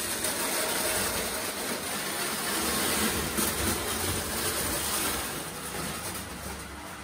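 Prewar Lionel O gauge toy train running on tinplate track: a steady rattle of wheels with an electric motor rumble, easing off a little near the end.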